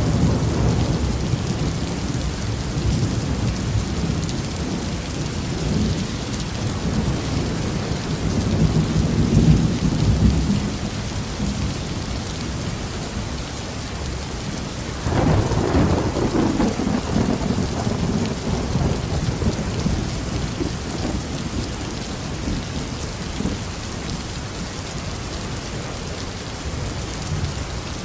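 Heavy rain falling steadily with deep thunder rumbling. The rumble swells about a third of the way in, then a sharper, louder thunderclap about halfway through rolls off slowly.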